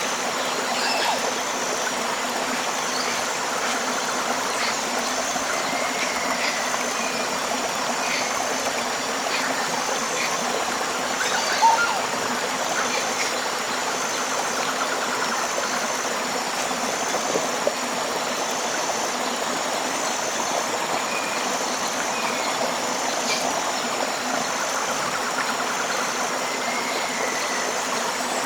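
Tropical river flowing steadily, with a high, thin pulsing call repeating about once a second and scattered short bird chirps over the water; a brief louder sound about twelve seconds in.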